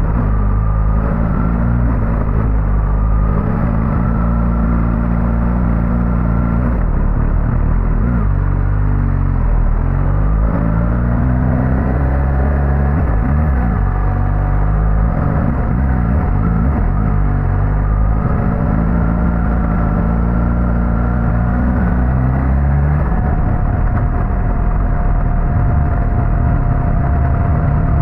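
Suzuki GSX-S1000GT's inline-four engine running under way, its pitch steady for stretches and then dropping or rising every few seconds with throttle and gear changes.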